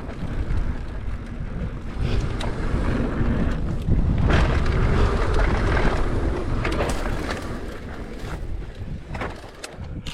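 Mountain bike ridden down a dirt trail: wind rushing over the microphone and tyres rolling on the dirt, with a few sharp knocks from the bike. The noise eases off over the last few seconds.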